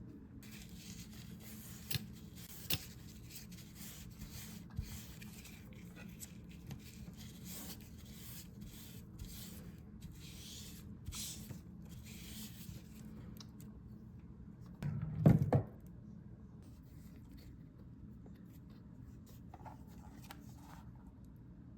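Leatherworking hand tools scraping and rubbing on leather in repeated strokes for about thirteen seconds, with a few sharp clicks, then a short loud knock about fifteen seconds in.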